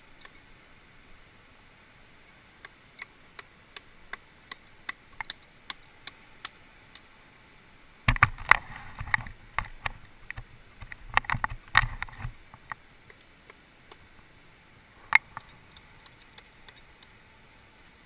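Irregular sharp clicks and knocks, as of hard objects striking and scraping rock up close, with a dense burst of louder knocks and low thumps from about eight to twelve seconds in and one more sharp click near the end.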